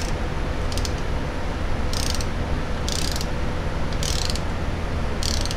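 Socket ratchet clicking in short bursts about once a second as a pipe tap is turned by hand into an aluminum transmission case, over a steady low hum.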